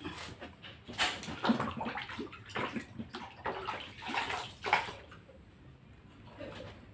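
Water splashing and sloshing in irregular bursts, mostly between about one and five seconds in, as a freshly cut glass bottle is rinsed.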